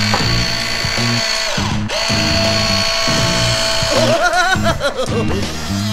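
Electric motor of a remote-control toy construction vehicle whining steadily over background music with a changing bass line. A little after halfway the steady whine gives way to a wavering tone that rises and falls.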